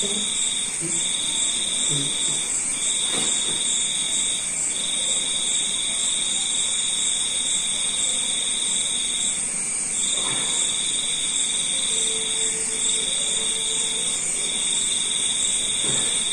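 Steady high-pitched chorus of insects such as crickets, with one trill at a lower pitch running in long stretches broken by short gaps.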